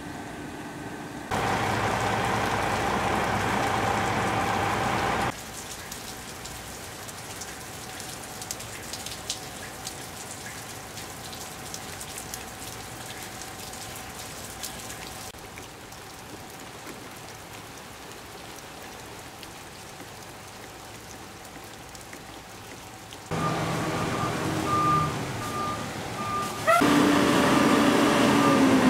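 Steady rain with light pattering drops over several short outdoor shots, then near the end a semi truck's engine running with a reversing alarm beeping at an even rate.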